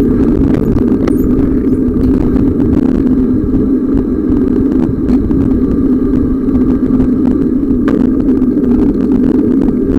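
Steady, loud rumble of wind buffeting the camera microphone while riding a bicycle.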